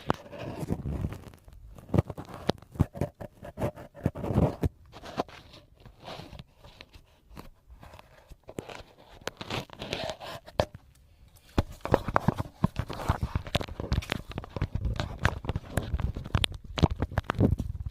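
Close-miked ASMR rustling: crinkly material handled and crumpled, with irregular crackles, sticky peeling clicks and scratchy rustle, busier and louder in the second half.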